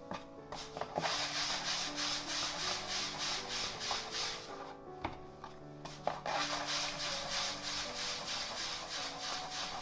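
Hands working bread dough against a work surface in quick rubbing strokes, about four a second. The strokes come in two spells with a short pause in the middle, over soft background music.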